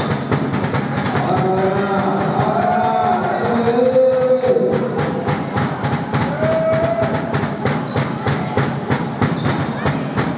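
Rapid, sharp clacking, about four strokes a second, that grows crisper and more regular partway through, with voices calling out over it in a basketball gym.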